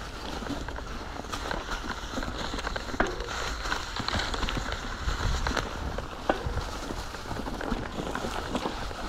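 Mountain bike rolling over a rough dirt trail: tyres crunching, with many irregular small clicks and knocks from stones and the bike, over a steady wind rumble on the microphone.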